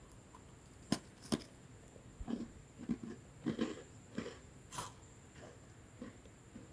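Lemon sandwich biscuit bitten with two sharp snaps about a second in, then chewed with a run of crunches that grow softer near the end.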